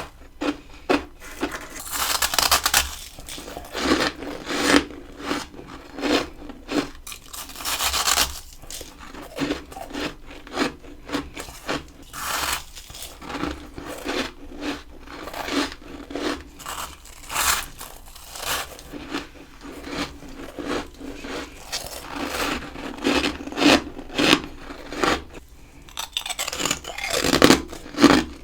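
Freezer frost being bitten and chewed close to the microphone: a long run of crisp, irregular crunches, with a few denser, louder stretches of crunching.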